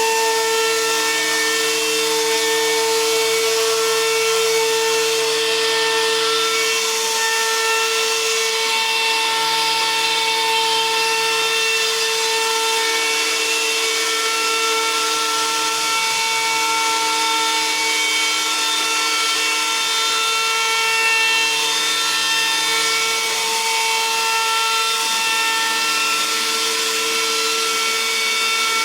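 CNC router spindle running with a steady high whine while carving a design into a gamari wood door, with a hiss of cutting over it. Lower parts of the sound drop out and come back every few seconds as the bit works through the wood.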